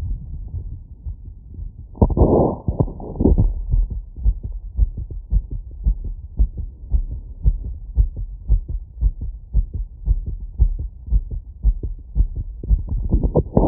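Human heartbeat heard through a wireless electronic stethoscope, beating fast and evenly, around 150 beats a minute after a 3 km run. The beat is briefly covered by louder noise about two seconds in and again near the end.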